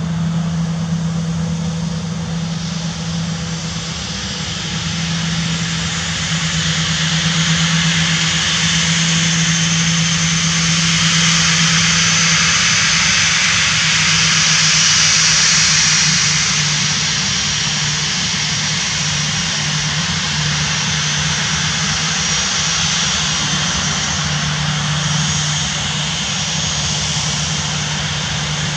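Boeing 737-800 jet engines running at taxi power: a steady hiss and whine that swells louder towards the middle as the airliner faces the listener, then eases, over a steady low hum.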